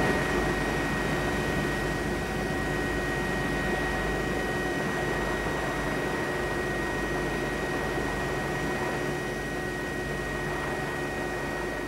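Helicopter cabin noise: a steady mechanical drone with a thin, high steady whine over it, fading in at the start and holding evenly.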